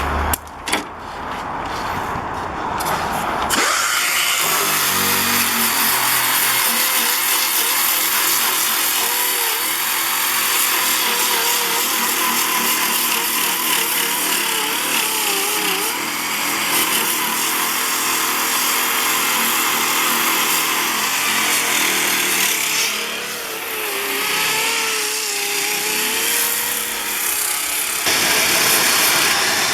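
A power tool cutting and grinding away rusted sheet metal and body filler on a car's rear quarter panel. A few sharp knocks come first, then about three and a half seconds in a loud, steady hissing whine starts and runs on, its pitch wavering as the tool is worked.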